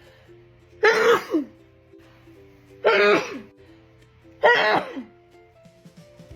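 A woman sneezing loudly three times in a row, each sneeze a short voiced burst falling in pitch at its end, about one and a half to two seconds apart, during a sneezing fit. Background music plays throughout.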